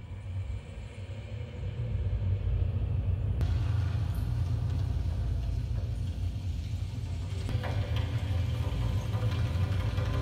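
Deep, steady rumble from an immersive projection show's soundtrack, swelling over the first couple of seconds and then holding, with faint music tones coming in after about seven seconds.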